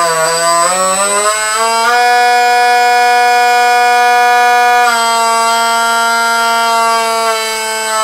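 Brushless electric motor of a Wing Wing Z-84 flying wing, throttled by its electronic speed controller from a hand-turned potentiometer. It makes a steady whine that rises in pitch over the first two seconds, holds, drops slightly about five seconds in, and wavers near the end.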